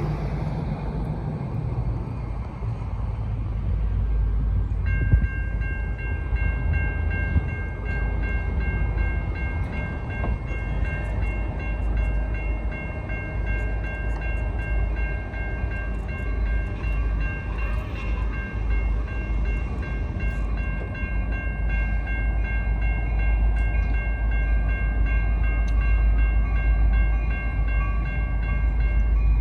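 Railroad crossing warning bell starts ringing about five seconds in as the crossing activates, and rings on without a break over a steady low rumble of an approaching train.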